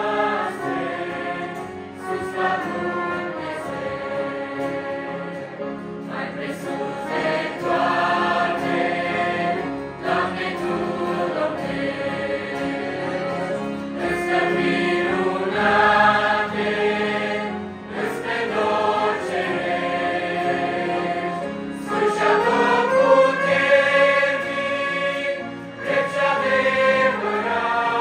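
Mixed youth church choir singing a hymn in parts, accompanied by trumpet, accordion, violin and acoustic guitar. The singing moves in phrases about four seconds long, with sustained held notes.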